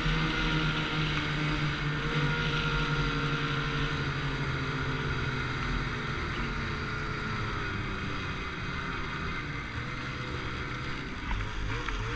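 Snowmobile engine running under way, a steady drone that eases slightly in loudness; about a second before the end the engine note rises and falls a few times.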